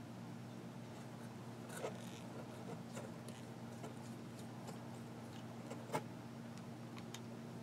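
Faint clicks and light scrapes of a Parker fountain pen being handled and taken apart, with a sharper click about six seconds in. A steady low hum runs underneath.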